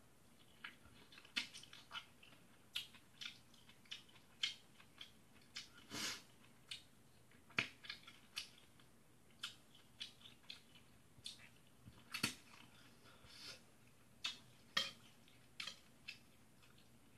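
Faint close-up eating sounds of a person chewing forkfuls of spaghetti: irregular wet mouth clicks and smacks, about one or two a second, with a couple of longer slurp-like sounds.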